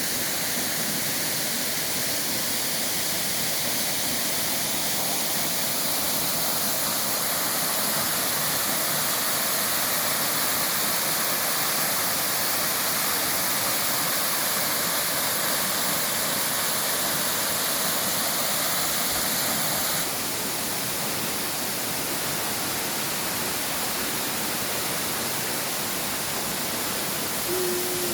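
Steady rush of a waterfall, a continuous roar of falling water that drops slightly in level about two-thirds of the way through.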